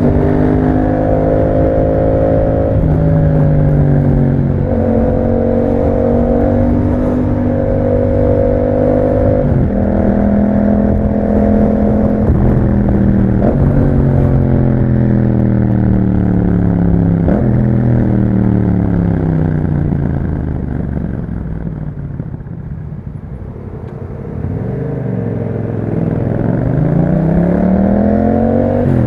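Yamaha MT-07's 689 cc parallel-twin engine through an Akrapovic exhaust, heard while riding. The engine note holds and steps with gear changes, then falls and quietens as the bike slows. Near the end it climbs steeply as the bike accelerates again.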